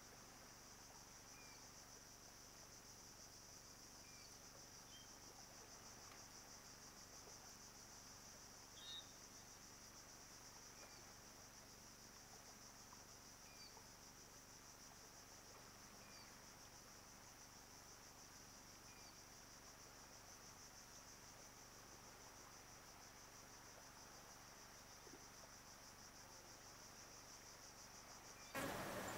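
Faint, steady high-pitched drone of an insect chorus, with soft chirps every couple of seconds and one slightly louder chirp about nine seconds in. Louder, broader noise starts just before the end.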